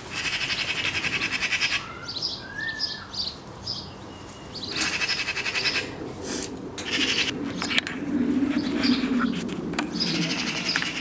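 Eurasian magpies giving their harsh, rattling alarm chatter in several bouts, with one short whistled note about three seconds in.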